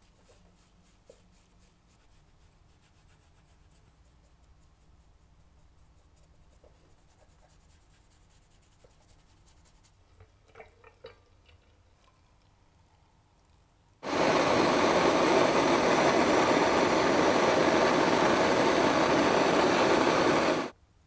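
A handheld gas blowtorch burning with a loud, steady hiss for about six seconds, heating a blued steel part, then cut off suddenly near the end. Before it there is faint brushing, and about ten seconds in a brief trickle of oil being poured into a glass.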